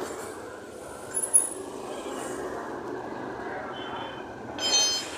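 Steady traffic noise from a road: a dense engine and tyre rumble. There is a sharp knock about a second and a half in, and a brief high-pitched tone with several pitches near the end.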